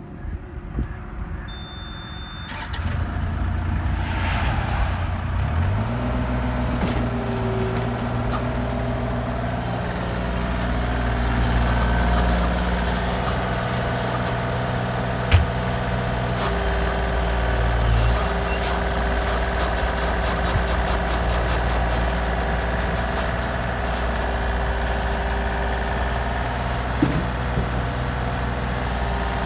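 Heavy diesel engine running steadily, its pitch stepping up a few seconds in, with a short single-tone beep just before it comes up.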